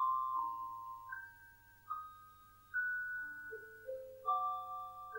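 Commodore computer demo music: a simple melody of single notes, each starting sharply and fading away, one or two sounding at a time.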